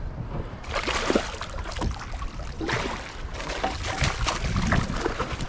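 A hooked doggy mackerel thrashing at the surface beside a boat, irregular water splashing in uneven surges starting about a second in.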